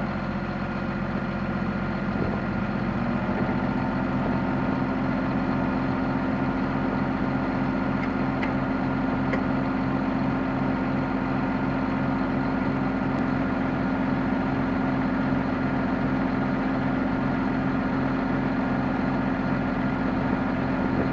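John Deere 7230R tractor's six-cylinder diesel running steadily, heard from inside the cab. Its pitch steps up slightly about three seconds in, and a regular low pulsing of about two to three beats a second runs underneath.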